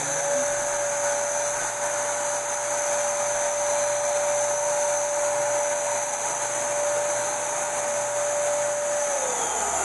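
Electric paint sprayer's 650 W turbine blower running steadily at full speed, a rushing blow with a steady whine over it. Near the end the whine glides down in pitch.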